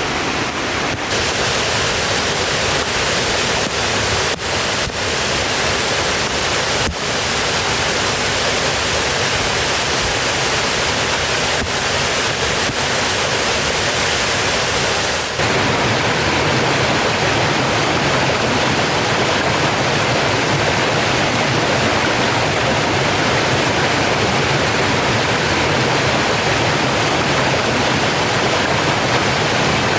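Waterfall on a creek: a steady, loud rush of falling water, with a sudden shift in its tone about halfway through and a few faint clicks in the first seconds.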